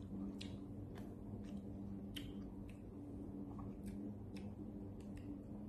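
Quiet eating sounds: scattered small clicks and smacks from chewing and from fingers picking at rice and fish in the bowls, coming irregularly over a steady low hum.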